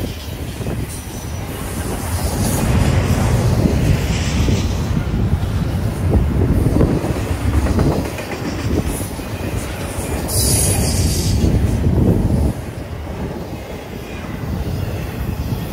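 Double-stack container cars of a Norfolk Southern intermodal freight train rolling past close by: a steady loud rumble and clatter of steel wheels on the rails, with a brief high hiss about ten seconds in.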